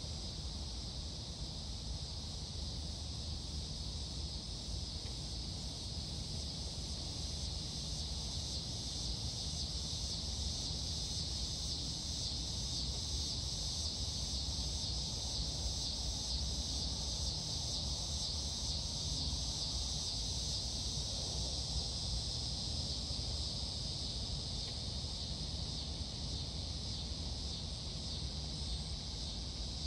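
Steady chorus of insects, a high pulsing trill that carries on throughout, over a faint low rumble.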